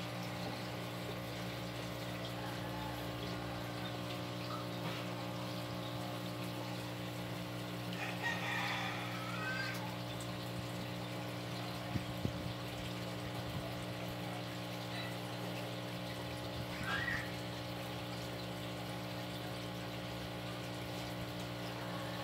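A steady low hum made of several level tones, with short wavering bird calls about a third of the way in and again past three-quarters, and two quick clicks near the middle.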